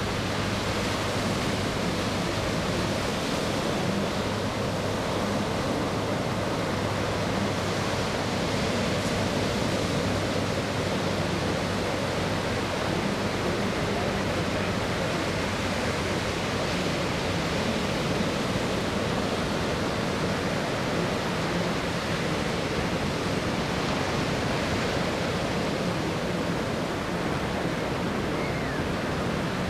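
Steady rushing noise with a low hum underneath, strongest in the first few seconds, from a Leonardo AW139 twin-turbine helicopter flying by at a distance.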